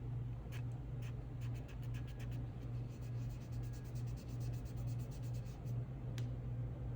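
Quick scratchy rubbing against a pistol slide as excess enamel colour-fill paint is worked off with solvent, a rapid run of small strokes over the first half, then a single click near the end, under a steady low hum.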